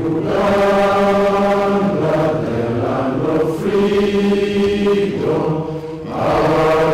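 A group of voices singing an anthem slowly in unison, with long held notes.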